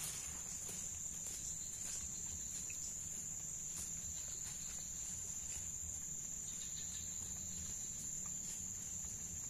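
Insects trilling steadily in one unbroken high-pitched tone, over a low, even rumble.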